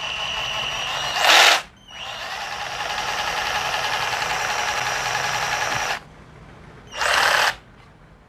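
Xenon CDJS1845 18 V cordless jigsaw running free with no load, its blade reciprocating in the air. It runs steadily, builds slightly, then stops abruptly about six seconds in. Two short, louder bursts of noise break in, about a second in and again near the end.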